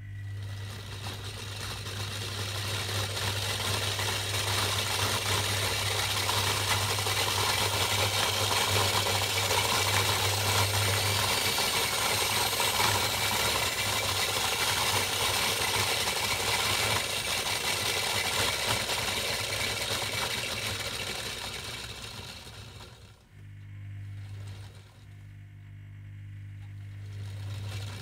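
Washing-machine motor driving a toy Miele washing machine's drum through rubber-band belts, with a steady electrical hum. It spins up over several seconds with a faint rising whine, runs fast with a rattling mechanical noise, then slows down about 21 seconds in, and near the end runs quieter at low speed with the hum still there.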